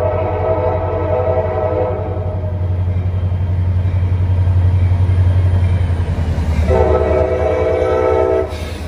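Diesel locomotive air horn of an approaching CSX freight train led by EMD SD40-2 units: a long blast ends about two seconds in, and a second blast sounds from about seven seconds until just before the end. Under the horn, the diesel engines make a steady low drone that grows louder as the locomotives draw near.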